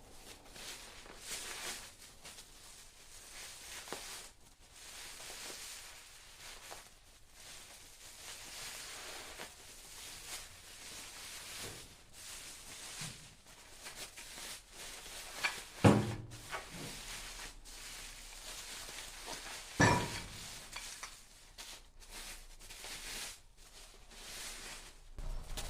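A shipping package being unpacked by hand: rustling and scraping of the packaging, with two louder knocks, one about two-thirds of the way through and another a few seconds later.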